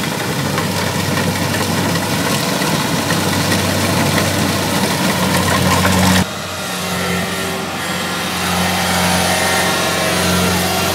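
Kubota crawler combine harvester's diesel engine running steadily with a dense mechanical drone. About six seconds in the sound drops suddenly, and a slightly quieter, steady drone from the same machine carries on.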